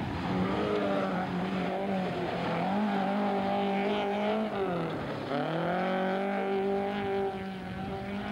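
Mk1 Ford Escort rally car's engine held at high revs while it slides through a loose-surface corner. The note falls away briefly about five seconds in and then climbs again as the car pulls away.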